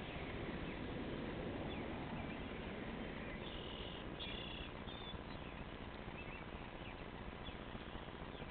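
Cat chewing and tearing at a rabbit carcass, with faint scattered crunches over a steady outdoor hiss. Two short high chirps come about halfway through.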